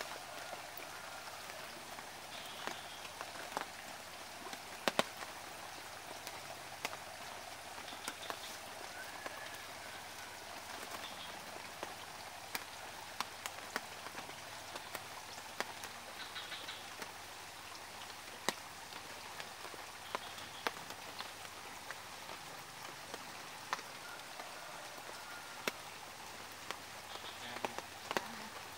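Faint, steady hiss of water with many scattered small ticks and patters, like light rain or water splashing into the fish pond.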